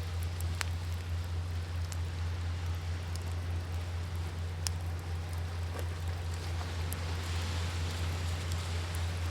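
Wood fire crackling, with scattered sharp pops, over a steady rushing wash of sea waves.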